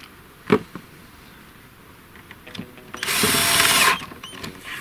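Cordless drill-driver running for about a second, driving a self-tapping screw into the laminated plywood of the table. A single sharp knock comes about half a second in.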